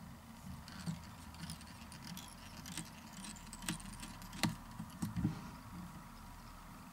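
Hands handling a fly in a fly-tying vise: faint rustling and scattered small clicks and ticks, a few sharper ones in the middle, over a faint steady hum.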